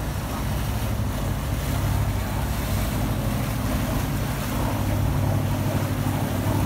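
A boat engine running with a steady low hum, with wind noise on the microphone.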